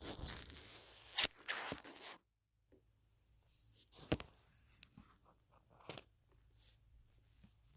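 Close-miked ASMR contact sounds on a microphone: a dense crunchy crackling and scraping for about two seconds, cut off sharply, then scattered soft clicks and crackles.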